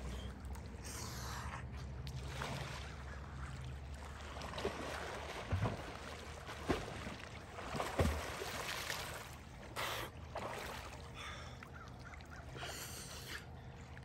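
Lake water splashing and lapping around a swimmer, with a few short sharp splashes in the middle.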